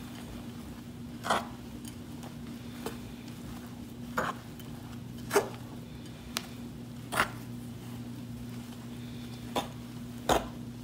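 Metal fork clinking and scraping against a ceramic mixing bowl while stirring a thick, shaggy soda bread dough: sharp, irregular clinks every second or two, the loudest near the end. A steady low hum runs underneath.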